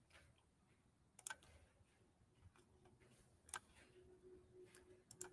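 A few faint, sharp computer mouse clicks over near silence: one about a second in, one around three and a half seconds, and a quick pair near the end.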